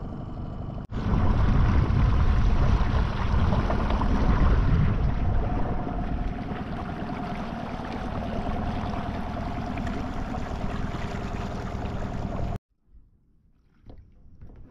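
Steady rushing noise of water and wind on the microphone while moving over the water, heaviest at the low end. It cuts off suddenly near the end, leaving near silence with a few faint ticks.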